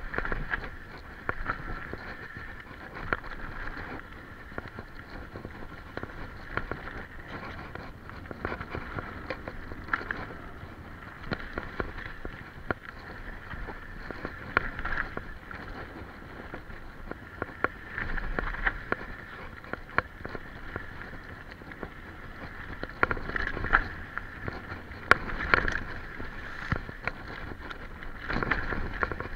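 Specialized Enduro mountain bike ridden down a rough, rocky dirt trail. The tyres, chain and frame keep up a steady rattle and rumble, with frequent irregular sharp knocks and clatters over rocks. The clatter is busiest about two-thirds of the way through.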